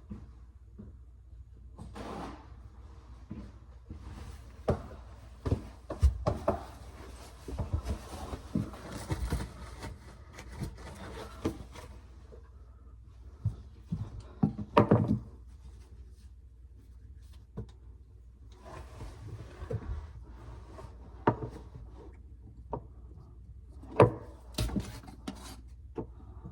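Hands-on plumbing work: tools and pipe parts being handled, with scattered knocks and clunks and stretches of rubbing and scraping.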